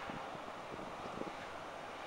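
Demolition excavator working, its engine running steadily under scattered light knocks and crackles of splintered timber and rubble in its grab.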